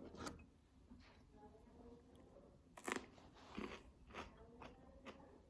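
Someone chewing raw red bell pepper, a few separate crisp crunches close to the microphone, the loudest about three seconds in.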